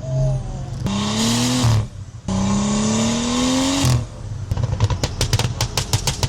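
Tuned BMW 335i N55 turbocharged straight-six accelerating hard: the revs climb, drop briefly at a gear change about two seconds in, and climb again through the next gear. On lifting off near the four-second mark the exhaust lets out a rapid string of pops and crackles, the overrun burble of the freshly flashed tune.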